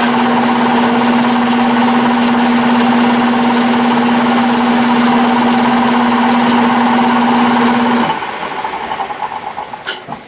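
Atlas metal lathe running steadily, a hum with one strong tone, while a radius-cutting tool in the tailstock chuck is fed onto the end of a spinning 3/16-inch mild steel rod. About eight seconds in the lathe is switched off and the noise falls away to a fading rattle as the chuck coasts down.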